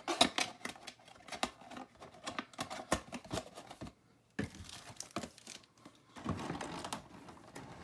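Toy packaging being handled and unpacked: irregular crinkling and crackling with sharp clicks, pausing briefly about four seconds in.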